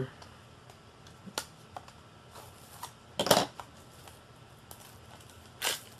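Plastic Blu-ray case and its packaging being handled: a few sharp clicks and short crinkly rustles, the loudest about three seconds in and another near the end.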